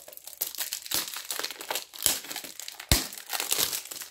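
Packaging crinkling and rustling as a small perfume-oil box is unwrapped by hand, with two sharper knocks about two and three seconds in.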